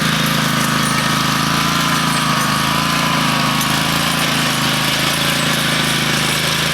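A power tool running steadily with a rapid pulsing, starting and stopping abruptly.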